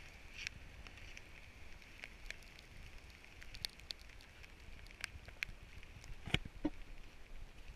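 Wind noise on the microphone in steady rain, with scattered sharp ticks of raindrops and a louder knock a little past six seconds in.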